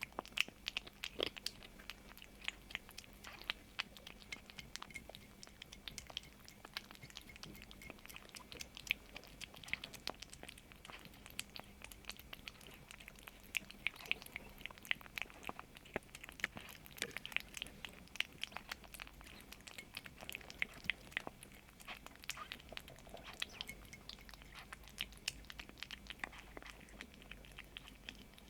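A kitten chewing food, a quick, irregular run of small crisp crunching clicks.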